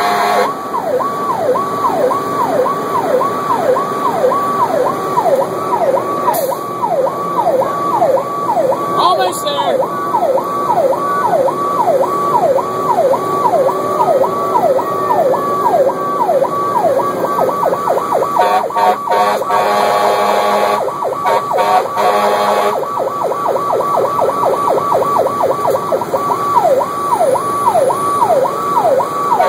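Emergency vehicle siren in a fast yelp, rising and falling about two to three times a second, heard from inside the cab of a rescue squad truck. About two-thirds of the way through, a steady horn sounds twice over it.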